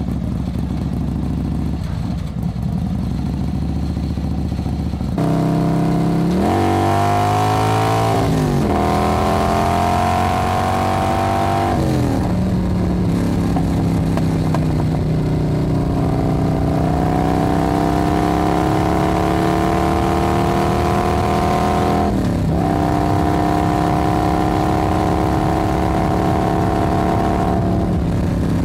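Motorbike-type engine sound: a low rumble at first, then a rise in level as the engine revs up and drops back twice. It then runs at a steady, fairly high pitch that slowly climbs, with a brief dip later on and a drop near the end.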